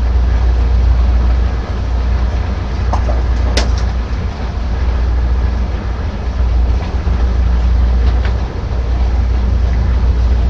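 Steady low rumble of heavy machinery, with a single sharp clank about three and a half seconds in.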